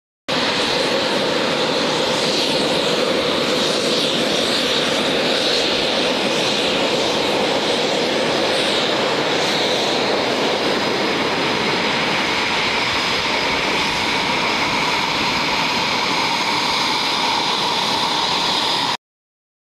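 Panavia Tornado jets' RB199 turbofan engines running steadily on the ramp at low power: a constant jet rush with a steady high whine. It starts abruptly and cuts off abruptly near the end.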